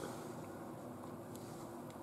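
Quiet room tone with a steady low hum, and two faint small clicks near the end as fingers handle the Oreo cookie.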